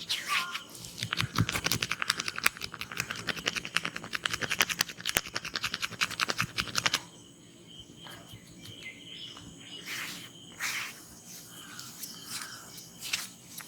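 Hand massage on a person: a fast, rhythmic run of sharp taps, many a second, that stops abruptly about seven seconds in. Afterwards a few scattered taps and birds calling in the background.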